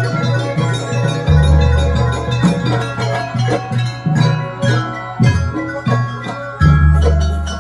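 Gamelan-style jaranan accompaniment: metal mallet instruments play a busy melody over drums, with a deep, long-ringing low stroke about a second in and another near the end.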